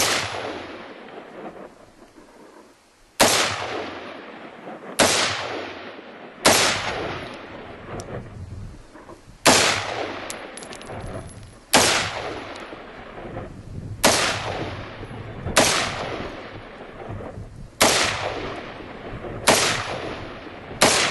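Gunshots fired one at a time at an unhurried pace, about eleven in all, spaced one and a half to three seconds apart, each sharp crack followed by a long echoing tail.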